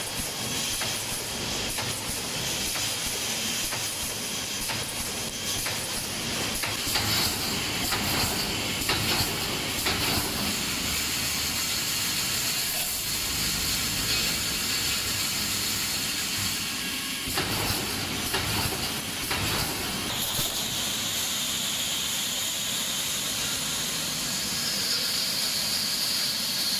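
Automatic wire mesh welding machine running, a steady hiss of compressed air from its pneumatic welding heads with scattered mechanical knocks and clanks.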